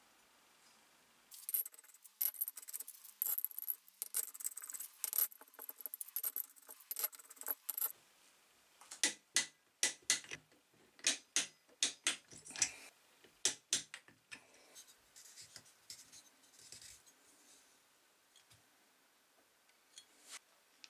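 Ratchet wrench clicking as the cylinder head bolts of a Briggs & Stratton Quantum engine are tightened: a fast run of clicks for several seconds, then slower, louder clicks from the ratchet of a click-type torque wrench as the bolts are torqued down. Fainter metal handling sounds follow near the end.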